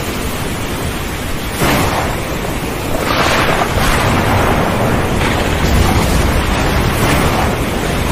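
Stormy sea: wind and heavy waves over a constant low rumble, with a stronger wave surge breaking every second or two.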